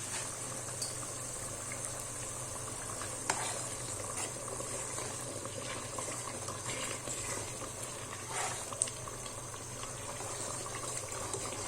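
Food in a cooking pot bubbling steadily on a gas stove, with a few faint pops and ticks.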